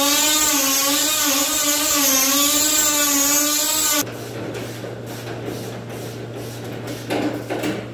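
Die grinder with a carbide burr grinding off a bolt head that has been drilled to weaken it: a high whine whose pitch wavers under load. It stops about four seconds in, and quieter scraping and clicking follow.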